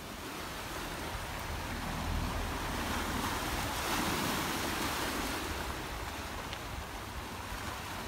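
Small waves washing onto a pebble shore, the surf swelling over the first few seconds and then easing, with wind rumbling on the microphone underneath.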